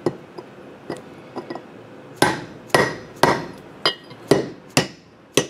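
Hammer striking a steel bearing driver seated in a front wheel hub, driving a new bearing race into the hub. A few light taps, then heavy strikes about two a second from about two seconds in.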